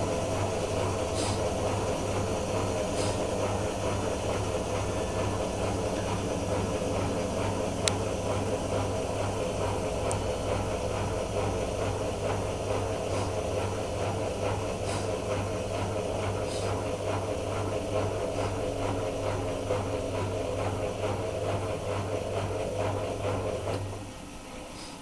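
Miele washing machine slowing down after its first interspin at 1000 rpm, with a steady motor and drum hum and faint regular ticking. Near the end the hum drops away suddenly and the machine goes much quieter.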